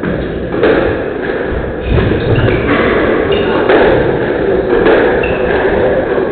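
Squash rally: the ball cracks off rackets and walls every second or two, with short high squeaks of shoes on the wooden court floor.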